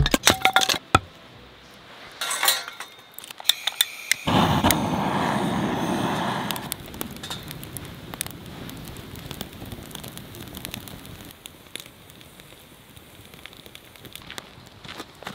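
A hatchet splitting kindling on a wooden chopping block, sharp knocks in the first few seconds. About four seconds in, a sudden loud rushing noise for about two seconds, then a wood fire burning with crackles and small pops.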